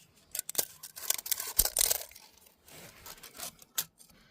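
Irregular scraping and rubbing, loudest about a second in, broken by a few sharp clicks and knocks: hands working with tools and wood at close range.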